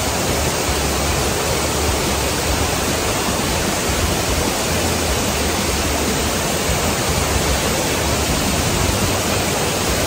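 Loud, steady rush of the Asik-Asik curtain waterfall and the fast white-water rapids at its foot, an even roar of falling and tumbling water that does not change.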